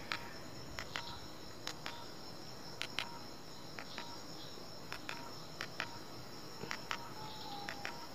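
Keys on a Samsung B310 button phone's keypad pressed one after another as a phone number is typed, each press a small click at an uneven pace. Crickets call steadily in the background.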